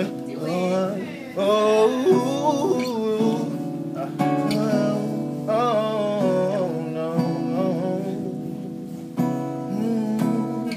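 Male R&B singer holding wavering melodic runs without clear words over acoustic guitar chords that change every second or two.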